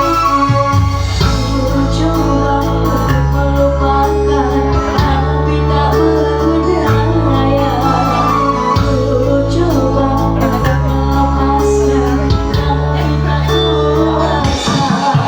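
Band music led by an electronic keyboard over a steady bass line that changes note every second or two, with a singing voice at times.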